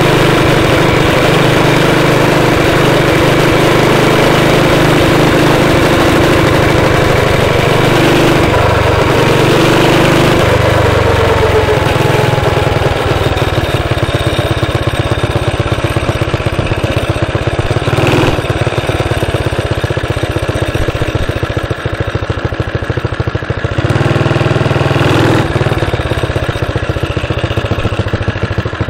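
Small gasoline engine of a motorized bicycle running as it rides. Its pitch falls about ten seconds in and it settles into a slower, pulsing run, picking up again for a moment near the end.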